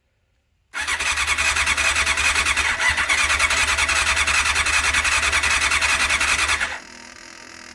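1989 Honda CBR600's electric starter cranking the four-cylinder engine in a fast, even rhythm with a whine, for about six seconds without it firing; the fuel tap is still off, so no fuel is reaching it. The cranking stops near the end.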